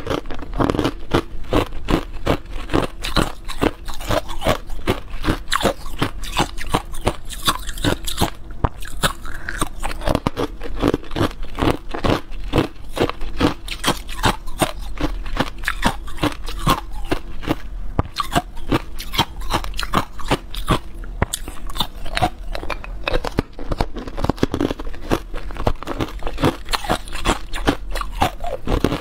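A person chewing and biting through hard, clear ice cubes close to a clip-on microphone: rapid, continuous cracking crunches, several a second.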